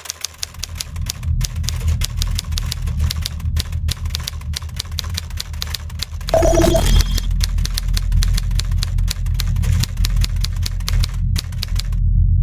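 Typewriter keys clacking in quick, irregular strokes, a typing sound effect, over a steady low rumbling drone. A short ringing tone sounds about halfway through, and the key clicks stop shortly before the end while the drone carries on.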